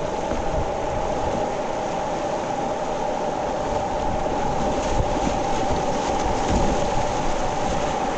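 Whitewater rapids rushing steadily around a kayak, a continuous roar of turbulent river water close to the boat.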